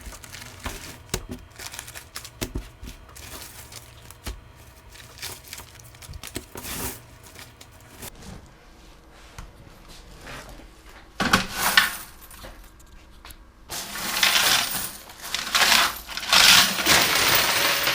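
Coins from vending machine collection bags being poured out and handled for counting: scattered clinks and rattles, then a long, louder rush of clattering coins from about 14 seconds in.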